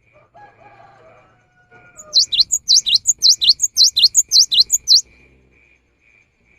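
Cinereous tit (gelatik batu) singing a fast run of about seven repeated, sharply falling two-note phrases. The song starts about two seconds in and stops abruptly about three seconds later. A faint, regular high ticking of a few beats a second runs underneath.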